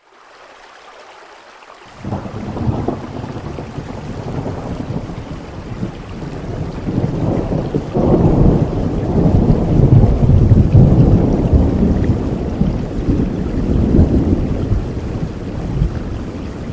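Steady rain with a long roll of thunder: after about two seconds of rain alone, a low rumble sets in, swells to its loudest midway and slowly dies away.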